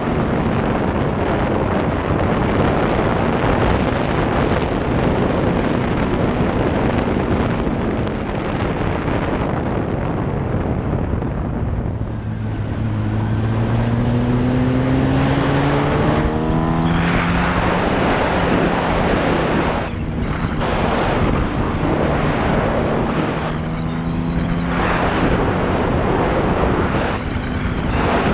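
Wind rushing over the microphone of a Yamaha R1 sport bike at speed, with its inline-four engine note coming through. About halfway in, the engine note rises as the bike accelerates, then holds with several brief dips.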